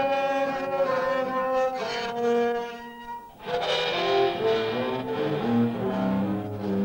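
Instrumental music of held pitched notes, coming in suddenly at the start. About three seconds in it drops briefly, then lower, denser notes take over.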